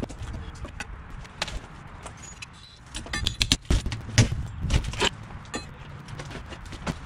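Knocks, cracks and scrapes of a rotted old window being pried and pulled out of its brick opening, with a flurry of quick rattling clicks about three seconds in and the loudest knocks around four and five seconds in.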